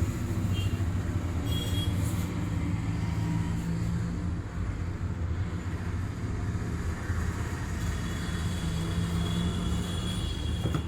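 Steady low rumble with no clear breaks, with a faint high tone in the last few seconds.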